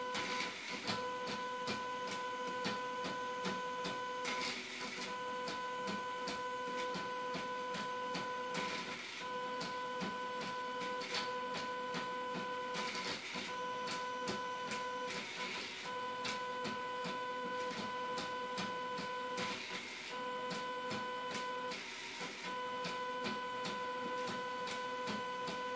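Robotic whiteboard eraser's gantry motors whining at one steady pitch as the eraser head steps across the board erasing. The whine breaks off briefly every few seconds between moves, with light ticking throughout.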